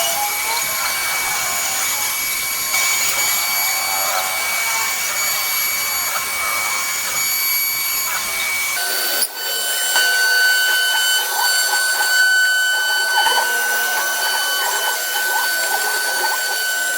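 CNC router machine running with a steady high-pitched whine over a haze of machine noise. About nine seconds in, the sound changes abruptly and the whine settles at a lower steady pitch.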